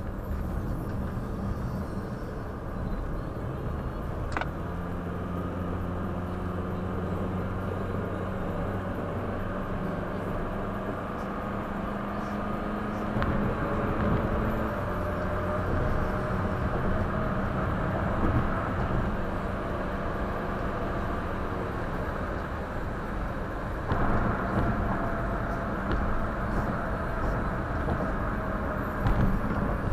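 Road and engine noise inside a moving car: a steady low hum with engine tones that shift as the car changes speed. A brief click comes about four seconds in, and a couple of louder jolts near the end.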